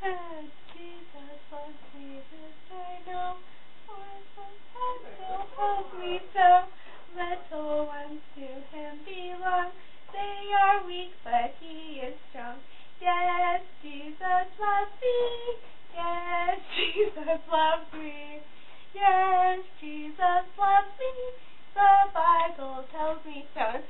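A girl's voice singing unaccompanied in short phrases with gaps between them.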